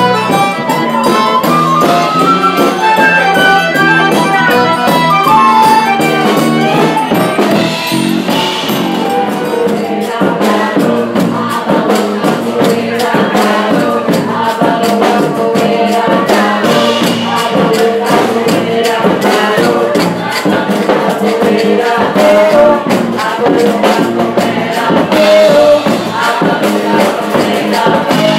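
A Brazilian band playing live: an accordion carries the melody over a triangle, bass and drums, and about eight seconds in the band joins with group singing and shaken wooden hand percussion over a steady, busy rhythm.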